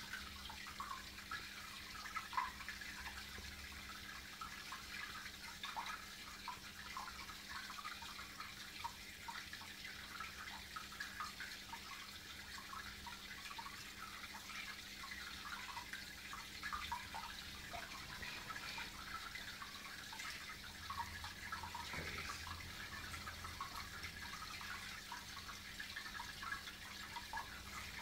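Aquarium water trickling and bubbling, with many small irregular splashes over a steady low hum.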